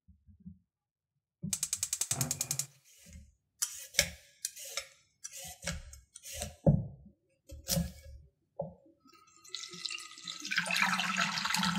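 A quick run of even clicks. Then about a dozen short scraping strokes of a handheld vegetable peeler stripping a carrot on a wooden cutting board. Near the end, water pours steadily into a stainless steel saucepan.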